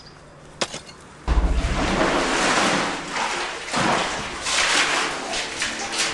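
A bucket dropping into a well: a thud as it hits the water about a second in, then several seconds of loud, uneven splashing and sloshing.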